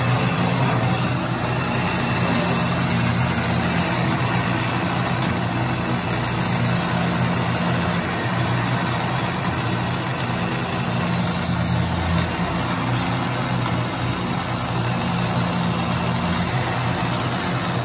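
Automatic saw-blade face grinder running, its wheel grinding the faces of carbide saw tips under coolant, over a steady low motor hum. The grinding sound changes in a cycle that repeats about every two seconds.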